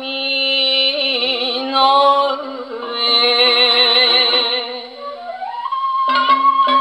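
A 1958 Japanese popular-song 78 rpm record played acoustically on an HMV 102 wind-up portable gramophone, with thin sound that has no highs. A voice holds long notes with vibrato over the accompaniment, then a flute-like line rises into a held high note near the end.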